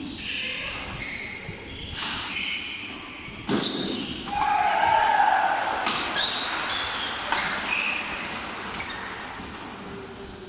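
Badminton doubles rally: sharp cracks of racquets hitting the shuttlecock every second or two, with short squeaks of court shoes on the wooden floor, echoing in a large hall. A louder drawn-out squeal comes about halfway through.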